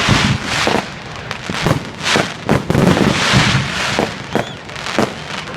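Fireworks going off in rapid succession: many sharp bangs, about two to three a second, over a continuous hiss and crackle.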